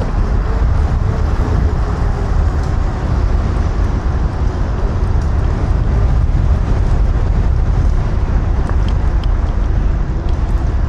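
Wind buffeting the microphone and road noise from a Kaabo Wolf King GTR electric scooter being ridden, with a faint wavering whine under it.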